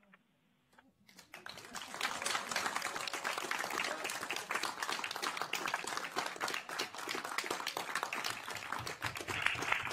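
Applause from a roomful of people. It breaks out about a second in, after a near-silent pause, and keeps going steadily.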